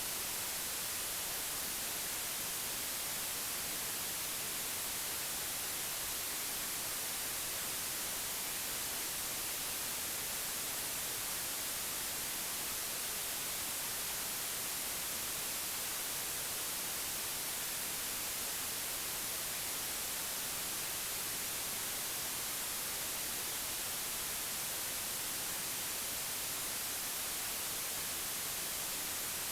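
Steady white noise: an even, unbroken hiss that stays the same throughout, brightest in the high treble.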